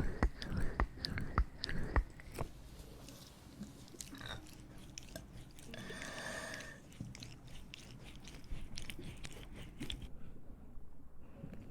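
Close-up mouth sounds of a girl chewing and biting, with a cluster of sharp clicks in the first two seconds and a drawn-out pitched sound lasting about a second, about six seconds in.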